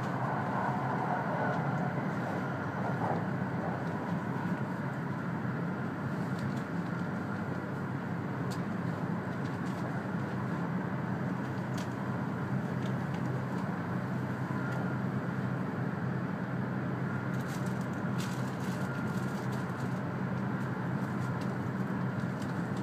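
Steady running noise inside the passenger cabin of an E2 series Shinkansen train in motion: a low rumble with a hiss over it and a few faint clicks.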